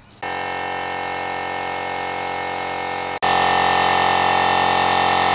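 Portable air compressor for a paint spray gun running with a steady motor hum. It starts a moment in and is louder after a cut about three seconds in.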